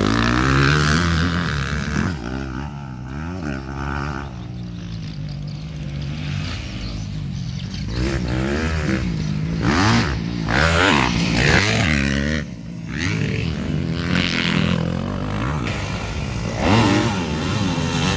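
250 cc grasstrack racing motorcycles running hard, their engine pitch rising and falling again and again as the bikes rev and pass. The bikes are loudest about ten seconds in and again near the end.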